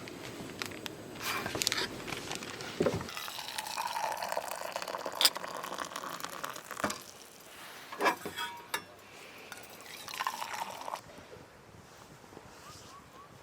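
Liquid being poured into a cup or glass, with a few sharp clinks and knocks of tableware.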